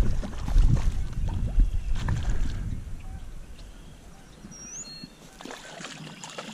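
Water splashing and sloshing with rough, rumbling handling noise as a hooked trout is played in a small stream. It is loudest over the first three seconds, with a few sharp knocks, then dies down to a quieter hiss. A short high chirp sounds near the end.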